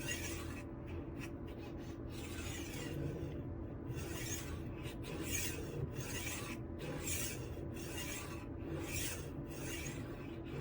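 Knife edge scraping against the honing disc of a HORL 3 Cruise rolling sharpener as the roller is rolled back and forth, in repeated gritty strokes about once or twice a second. This is the finishing step, taking the burr off the chef's knife edge.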